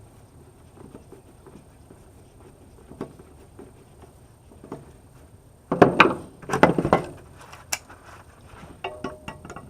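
Small clicks of metal faucet parts being handled, then a loud burst of clattering knocks about six seconds in, as brass parts and tools bang on the work surface.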